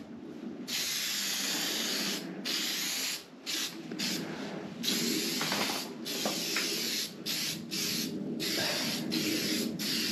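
Aerosol can of Rust Check flat black paint hissing in on-and-off bursts, putting a light first coat onto bare steel. The bursts last a second or two at first, then come shorter and quicker with brief gaps.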